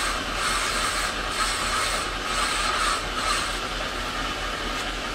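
Quartz crystal sphere ground by hand on a spinning wet grinding dish: a steady gritty hiss of stone on abrasive over the hum of the machine, with a faint pulse about once a second. It eases a little after about three seconds, as the stone comes off the dish.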